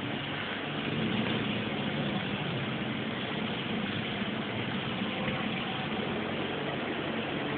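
Steady hum and rush of an indoor swimming pool hall's machinery, with a faint low drone underneath.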